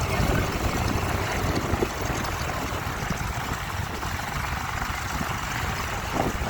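Radial engines of vintage biplanes running on the ground, a steady low rumble.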